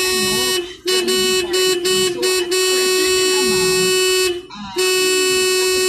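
Vehicle horn blaring in traffic, held long on one steady note. It breaks off briefly about half a second in, gives a few quick toots between one and two and a half seconds, then holds again, with one more short break near four and a half seconds.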